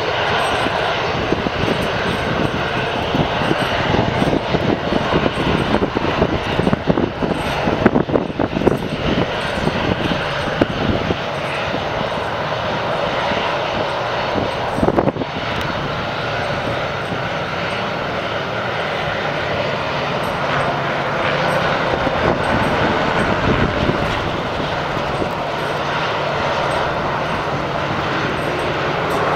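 Boeing 737-300's CFM56 jet engines running during the landing rollout: a continuous broad jet rumble that is rough and uneven for roughly the first ten seconds, then steadier, with one brief sharp click about halfway through.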